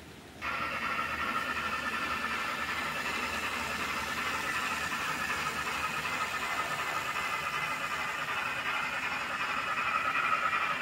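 N scale model diesel locomotives running along the layout track: a steady whir of the small motors and the wheels on the rails. It starts suddenly just after the start and grows louder near the end as the train comes close.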